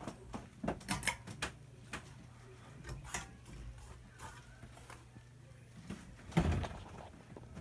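SMC Emperor ceiling fan's motor running with a low steady hum, with scattered clicks and knocks over it and a louder thump about six and a half seconds in.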